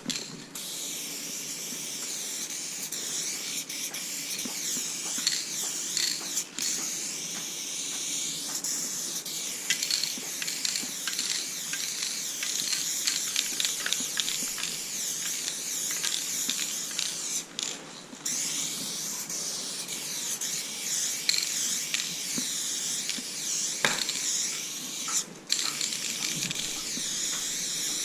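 Aerosol spray paint can hissing steadily as a graffiti piece is filled in, cutting off briefly a few times between strokes.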